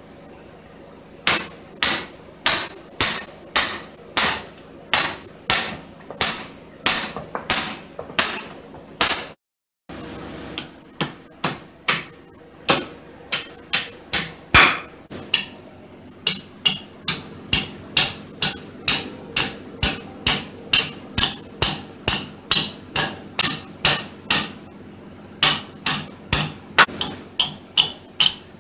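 Hammer driving nails into the gap between an axe head's eye and its new wooden handle, wedging the handle tight. The blows come about two a second. In the first third they are loud, with a clear metallic ring. After a brief gap the blows come lighter and do not ring.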